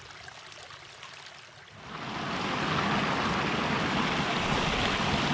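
Small mountain creek running and splashing over rocks, a steady rush of water. It is faint at first and swells in about two seconds in, then holds steady.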